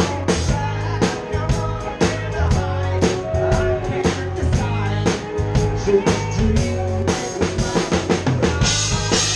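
Live band playing, a drum kit driving a steady beat of kick, snare and rim hits over sustained bass and pitched instrument notes, with a cymbal wash coming in near the end.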